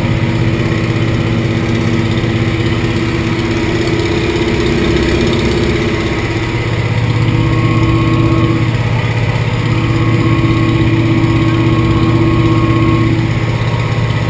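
Antonov An-2's nine-cylinder Shvetsov ASh-62IR radial engine running steadily in flight, heard inside the cabin as a loud, unbroken drone.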